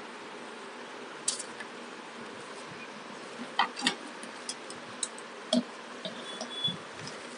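A plastic blister pack and bubble wrap handled by hand: scattered sharp clicks and crinkles over a steady hiss, most of them in the middle.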